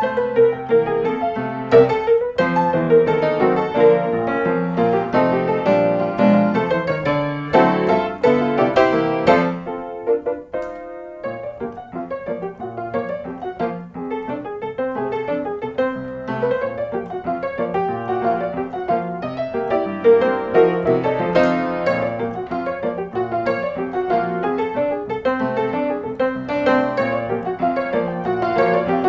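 Background piano music, a steady run of notes with a brief pause near the middle.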